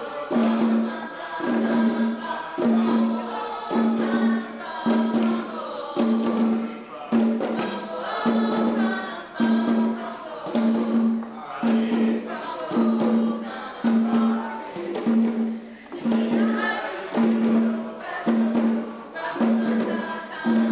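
Group singing over hand drums, with a strong beat pulsing about once a second under the voices.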